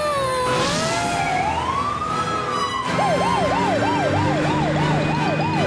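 Fire engine siren: a slow rising-and-falling wail that switches about three seconds in to a fast yelp of roughly two to three sweeps a second. A short rushing noise passes under it near the start.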